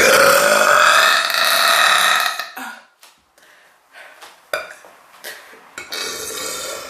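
A woman's long, loud burp of about two and a half seconds, followed by a few small clicks and a softer sound near the end.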